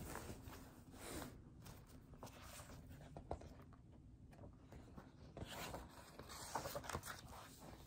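Faint rustling and flapping of a large picture book's paper pages being riffled through and bent back, heaviest at the start and again in the last couple of seconds.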